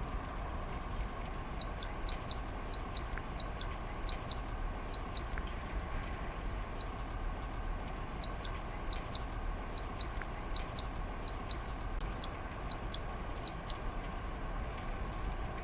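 Zitting cisticola singing: a series of short, sharp, high 'zit' notes, mostly in quick pairs, with a pause of about a second and a half in the middle. A steady hiss of rain runs underneath.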